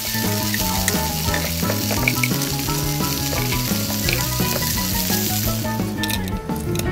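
Squid and salted egg stir-frying in a miniature pan: a steady sizzle with a wooden spoon stirring. The sizzle cuts off about six seconds in as the pan is tipped onto the plate.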